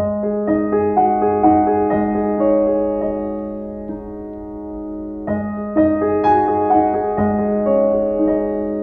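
Background music on piano: a melody of single notes over held low notes, beginning abruptly.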